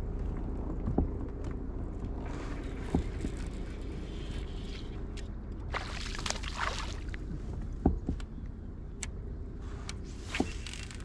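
Fishing kayak moving slowly on the water with a steady low hum, scattered clicks and knocks, and a few brief hissing rushes, the clearest about six seconds in.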